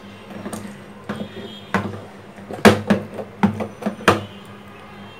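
A drinking glass pressed and pounded into soft eggplant pulp on a plate to mash it into a paste, giving about eight or nine irregular knocks as the glass bottom strikes through to the plate. The loudest knocks come near the middle and about four seconds in.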